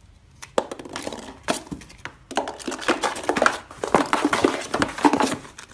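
Cat's claws scratching and scraping the cardboard of a box as it paws and rolls around inside it: a dense run of quick scratches and knocks, heaviest in the second half.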